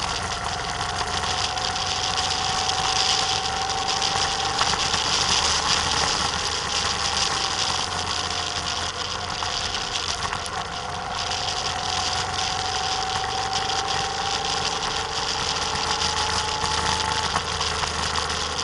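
Motorcycle engine running under way, its pitch climbing slowly, dropping around six seconds in, then climbing again. Wind rushes over the camera throughout.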